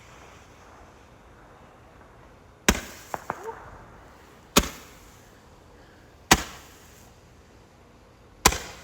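Four loud firework bangs, evenly spaced about two seconds apart, each with a short echoing tail; two small pops follow just after the first.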